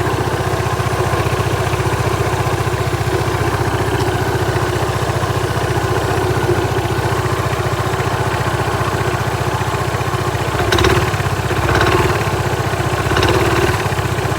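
Yamaha Majesty 400 scooter's single-cylinder four-stroke engine idling steadily, with three brief louder swells in the last few seconds. The owner is checking it for a knock from the clutch.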